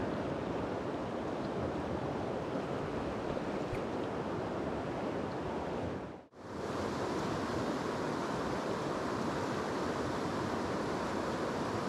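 Rushing river water running over shallow rapids, a steady rush. It cuts out for a moment about six seconds in and comes straight back.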